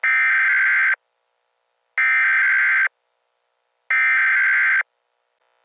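NOAA Weather Radio SAME digital header for a Required Weekly Test, received on a radio: three buzzy, warbling data bursts of about a second each, a second apart.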